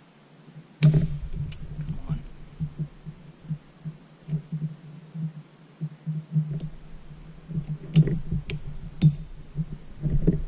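Snap ring pliers and a steel snap ring clicking against a cast fan angle drive housing as the ring is squeezed and worked into its groove above the bearing. Sharp metallic clicks, a loud one about a second in and three in quick succession near the end, over a low uneven rumble of handling.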